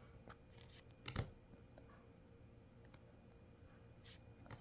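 Near silence with a few faint clicks and rustles of trading cards being handled, the sharpest a single tap about a second in.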